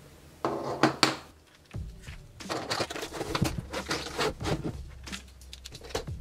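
Hair and plastic perm rods handled close to the microphone while the rods are unfastened and unrolled: rustling and crinkling with many small clicks. There is a louder rustle about half a second in.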